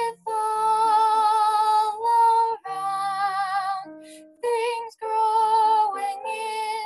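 Teenage girl singing solo, holding long notes with vibrato in several phrases broken by short pauses for breath.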